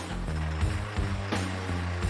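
Background music with a steady beat, about one stroke every 0.7 seconds, over a low bass line.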